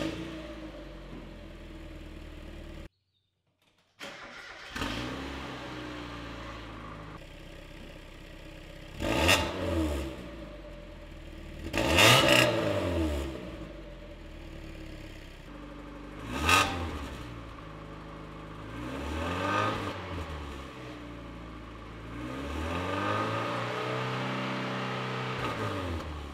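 1992 Mazda Miata's 1.6-litre four-cylinder idling through its catless aftermarket exhaust and blipped several times, with a longer rev near the end. The exhaust is heard first without and then with a cheap stainless resonator welded in, meant to tame its rasp and drone.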